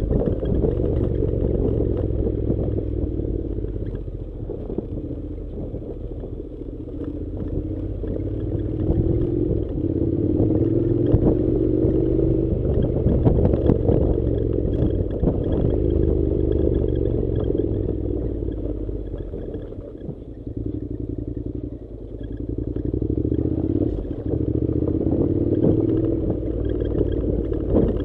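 Honda NC700's parallel-twin engine running at low revs while riding a rough gravel track, its note rising and falling with the throttle. Clatter and rumble from the tyres and suspension on loose rock run through it.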